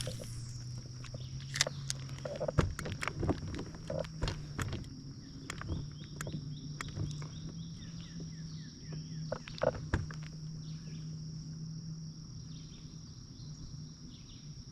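Scattered clicks and knocks of fishing gear being handled in a boat, mostly in the first ten seconds, over a steady low hum and a steady high-pitched whine.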